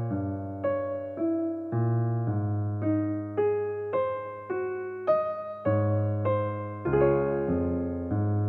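Background piano music: a gentle melody of single notes struck about twice a second, each fading away, over held bass notes.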